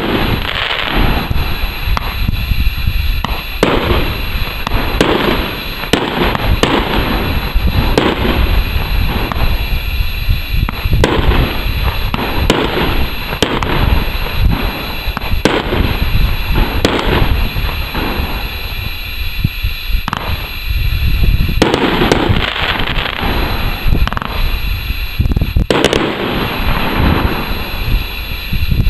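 Red Lantern Flash Willow 26-shot 500 g fan cake firing: a loud shot every second or two, with a steady rush of noise between the shots.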